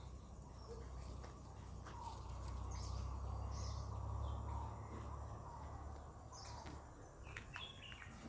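Quiet outdoor ambience: faint short bird chirps over a steady low rumble, with a few faint clicks.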